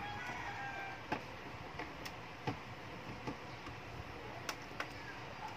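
A few light, irregular clicks and ticks of a screwdriver and screws on the plastic back cover of an LCD TV as the cover screws are taken out.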